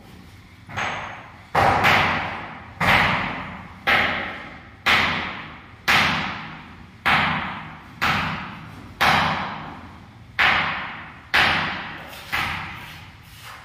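Repeated heavy knocks, about one a second, each starting sharply and ringing away over most of a second.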